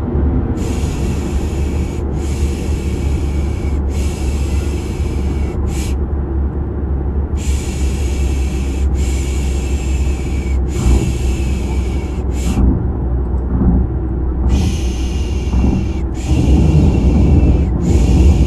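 Steady low car rumble, like road and engine noise heard inside a moving car, with a person's 'shh' shushing laid over it. The shushing comes in groups of three long shushes and a short one, a group about every seven seconds.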